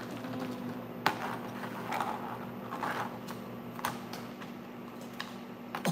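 Plastic toy scoop and small pebbles clicking and knocking on a plastic play tray: a few sharp taps, about a second in, near four seconds and near the end, with softer scraping between.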